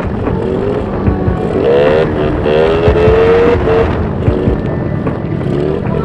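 Riding on a small motorcycle: heavy wind rumble on the microphone, with a motorbike engine rising in pitch in steps as it accelerates, from about a second and a half in to about four seconds.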